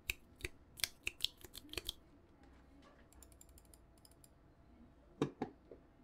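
Keys on a Tom980 mechanical keyboard fitted with Jwick red linear switches and PBT XDA keycaps, pressed one at a time: about ten separate keystrokes in the first two seconds. Two louder clicks follow near the end.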